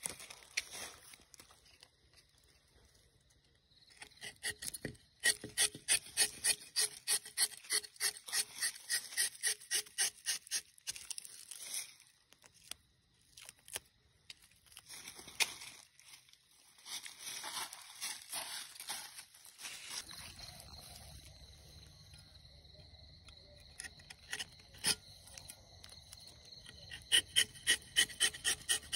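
A rubber-tapping knife shaves a thin strip of bark along the sloping tapping cut of a rubber tree. It goes in runs of quick, repeated scraping strokes, about three a second, with pauses between the runs.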